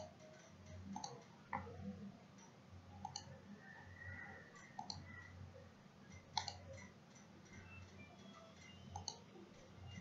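Computer mouse clicking: several single, faint clicks, spaced unevenly a second or more apart, over a low background hum.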